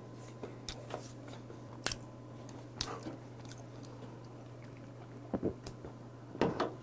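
A person chewing a big mouthful of roasted peanuts, with faint, scattered crunches and mouth clicks, then gulping beer from a can near the end.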